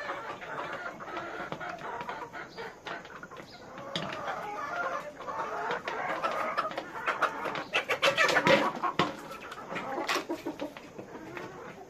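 A flock of chickens clucking and calling over one another, busiest and loudest about eight to nine seconds in, with a few sharp knocks among the calls.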